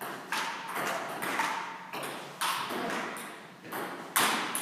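Table tennis rally: a celluloid ball clicking off bats and the table in quick, irregular strikes, echoing in a large hall. The loudest strike comes near the end.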